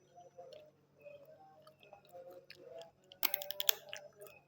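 A person chewing food close to the microphone, with soft wet mouth noises and, a little past the middle, a quick run of sharp crunchy clicks.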